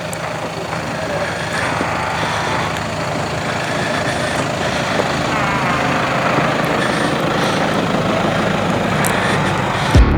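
An off-road vehicle's engine running steadily, with indistinct voices over it. Loud music cuts in at the very end.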